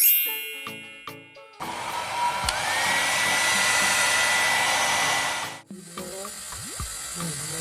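Brushless-motor hair dryer switched on: a loud rush of air with a high motor whine that climbs as the motor spins up, then holds one steady pitch. It cuts off suddenly about four seconds later, and a quieter air rush follows near the end.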